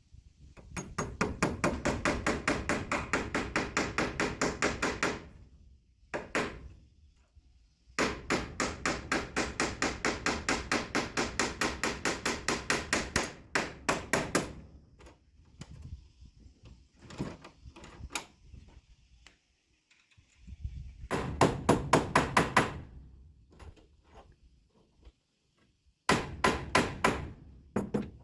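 Rapid hammering on wood, about seven sharp strikes a second, in four bursts of a few seconds each with pauses between.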